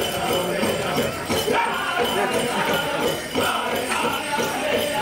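A powwow drum group singing a prairie chicken dance song over a steady drumbeat, with the bells on the dancers' regalia jingling.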